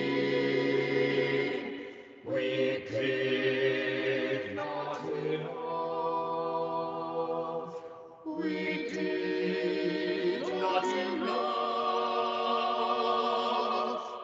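A small mixed choir singing a cappella in held chords, phrase by phrase, with short breaks between phrases. The sung words include "We did not enough."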